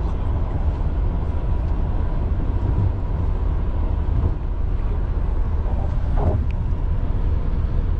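Loud, steady low rumble of a moving vehicle, with no distinct events.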